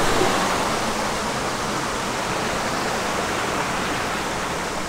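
Flowing water rushing steadily, an even hiss without breaks.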